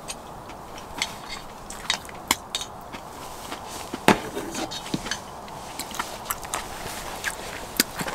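Irregular light clicks and crunches of a snack being bitten and chewed, shared between a person and a small dog, over a steady low background hiss; the sharpest click comes about four seconds in.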